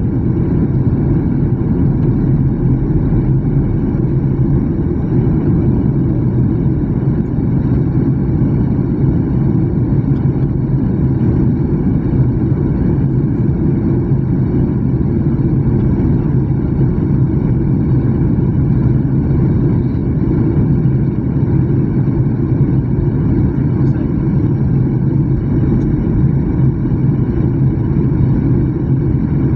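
Steady cabin drone of a jet airliner on its descent, heard from a seat beside the wing: engine and airflow noise, loud, low and even throughout, with a steady low hum.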